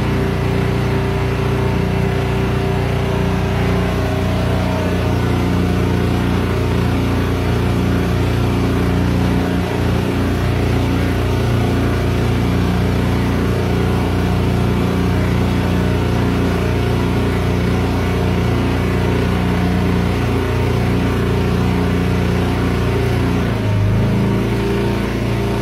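Small motorboat's engine running steadily under way, with hiss from wind and water. Its pitch shifts near the end as the engine speed changes.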